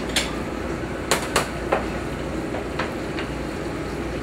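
About six short clinks and knocks of a plate and utensils being handled on a steel kitchen counter, the loudest two close together a little after one second, over a steady kitchen hum.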